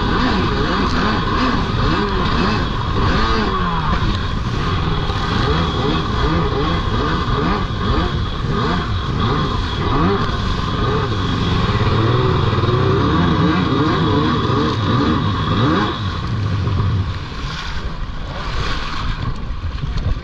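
Stand-up jet ski engines running on the water, several at once, their revs rising and falling as the skis ride and turn, easing off near the end.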